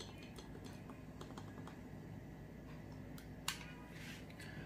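Faint light clicks and taps of small items being handled, with one sharper click about three and a half seconds in.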